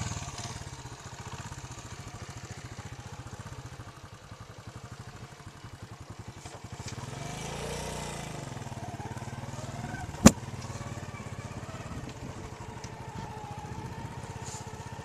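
Small commuter motorcycle's engine running with an even, rapid putter. The note swells and falls once around the middle. A single sharp click about ten seconds in is the loudest moment.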